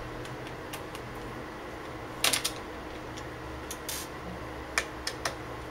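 A few small clicks and taps of a screwdriver and screw against the plastic bottom case of a laptop while a keyboard screw is worked out, the loudest a short clatter about two seconds in and a few single clicks near the end.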